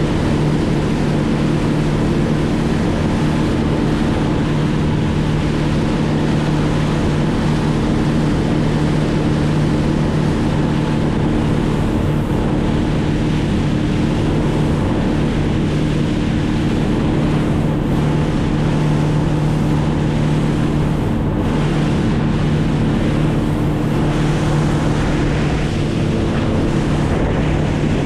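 Boat motor running at a steady speed, a constant hum over the rush of water and wind.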